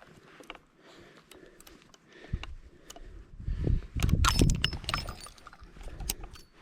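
Metallic clicks and clinking, the loudest around the middle: brass cartridges and a revolver being handled. A low rumble runs under it from about two seconds in.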